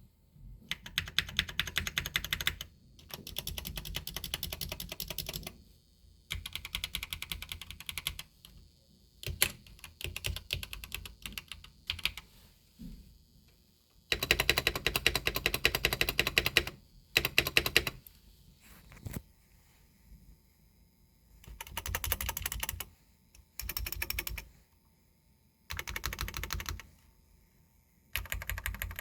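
Aigo A100 mechanical keyboard being typed on: rapid runs of key clicks lasting a few seconds each, broken by short pauses and a few single keystrokes.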